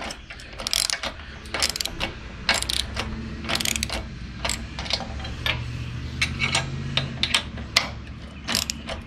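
Socket ratchet wrench clicking in repeated short bursts as it tightens nuts onto bolts a little at a time.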